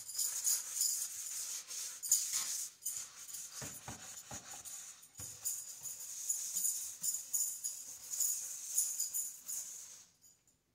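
Scouring sponge with a steel-wire pad scrubbing a stainless-steel kitchen sink coated in a baking-powder, vinegar and detergent paste: a rhythmic, high-pitched rasping, stroke after stroke, with a few dull knocks midway, stopping about ten seconds in.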